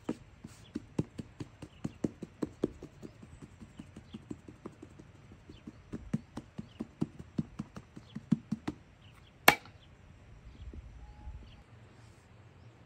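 Knife chopping on a cutting board: quick, steady strokes at about four a second that stop about nine seconds in, followed by one sharp, louder knock.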